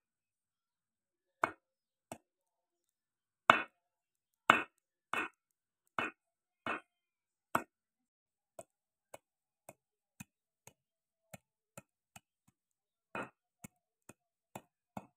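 A curved machete blade chopping an eel into pieces on a wooden log block, each stroke a sharp chop. Heavy chops come less than a second apart through the first half. Lighter, quicker taps follow at about two a second, with a few heavier chops again near the end.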